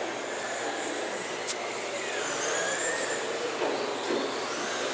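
Radio-controlled formula car's motor whining as it laps a carpet track, the pitch rising and falling with throttle over a steady hiss, with one sharp click about a second and a half in.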